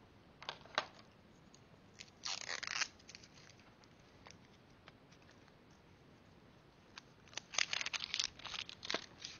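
Craft tools being handled and set down on a cutting mat, with a few light clicks and knocks, then a stretch of crinkling, tearing-like rustling and clicks near the end.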